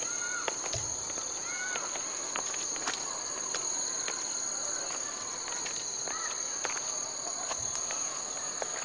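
Forest insects buzzing in a steady, high-pitched chorus, with short chirping calls every second or two and a few soft taps and thumps.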